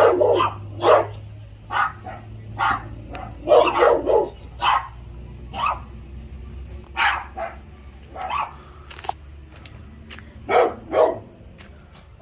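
A dog barking repeatedly, in single barks and quick pairs at uneven spacing, over a low steady hum.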